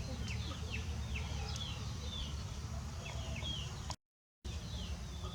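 Birds chirping: short high chirps, each falling in pitch, repeated two or three times a second over a low steady rumble. The sound cuts out completely for about half a second about four seconds in.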